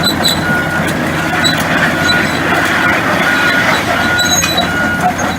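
Hitachi ZX450LC excavator running, its travel alarm beeping steadily about once every 0.7 seconds over the diesel engine, with scattered clanks.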